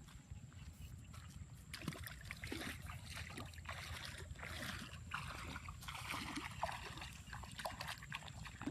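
Water splashing and sloshing in a run of irregular bursts, over a steady low rumble.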